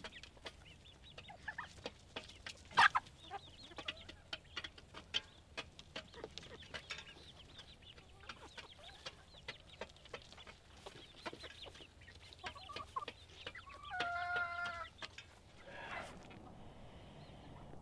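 A flock of chickens, young Cracker chicks among them, clucking and calling, with many short scattered calls. About fourteen seconds in comes one louder, drawn-out call.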